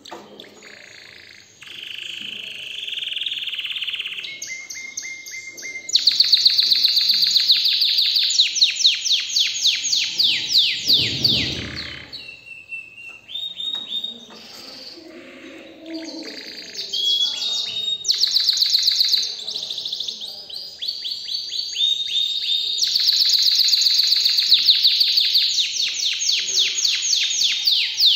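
Domestic canary singing: several long phrases of fast trilled notes, each phrase a rapid run of repeated high notes, with short pauses between them.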